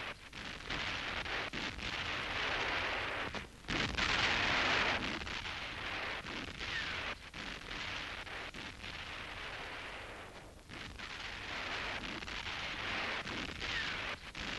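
Hiss and crackle of an old film's optical soundtrack, with two brief dropouts, one a few seconds in and one about two-thirds of the way through.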